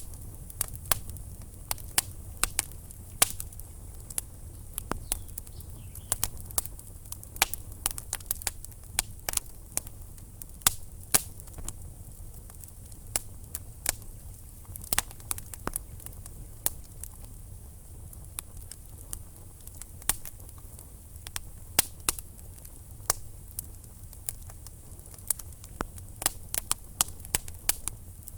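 Wood fire crackling in a fireplace: irregular sharp pops and snaps, several a second, over a low steady rumble of the flames.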